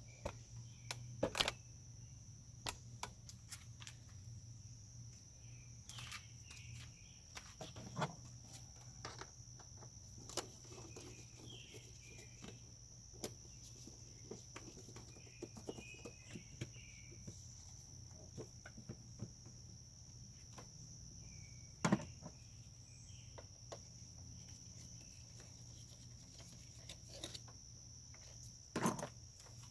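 Scattered light clicks and knocks of hand tools and parts being worked on an engine while fuel lines are removed, a few sharper knocks standing out. Behind them runs a steady high-pitched note and a low hum.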